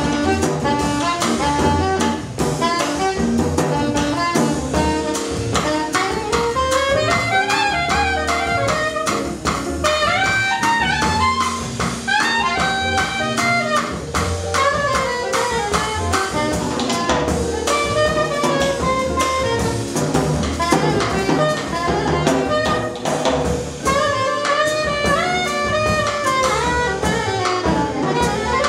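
Live jazz combo playing: a soprano saxophone carries a wandering melodic line over upright bass and drum kit.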